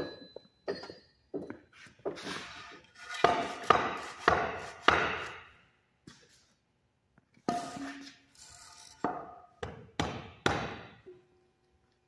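A string of sharp knocks and clanks, some with a brief metallic ring, in two clusters with a pause near the middle.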